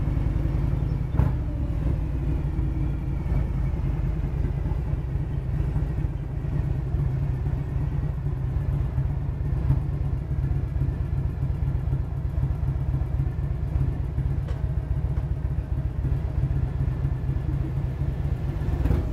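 Motorcycle engine running at a steady cruise, a loud, even low rumble heard from on the bike while riding.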